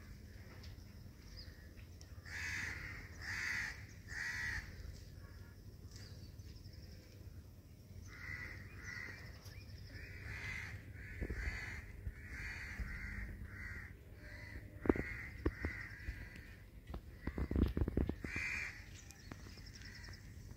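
Birds calling in short repeated calls: three close together, then after a pause a long run about a second apart. Under them is a steady low rumble, with a few sharp thumps in the later seconds.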